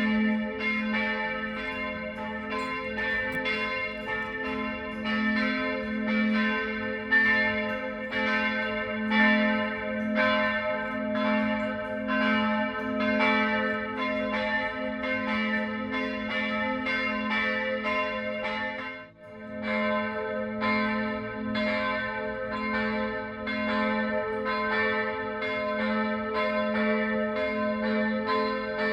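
Church bells ringing, a continuous run of strokes in quick, even succession over a sustained ringing hum, with a brief break about two-thirds of the way through.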